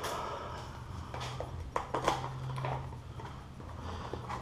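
Plastic sport-bike bodywork being handled and worked loose: a scatter of light clicks and knocks over a faint steady low hum.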